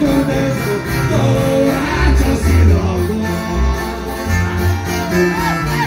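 Live Mexican regional band music: a man singing into a microphone over guitar and a heavy bass line, played through the stage PA.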